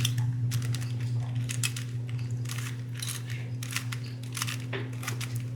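Classic stickered Rubik's brand cube being scrambled by hand: a stiff cube, turned with an irregular run of plastic clicks and scrapes, over a steady low hum.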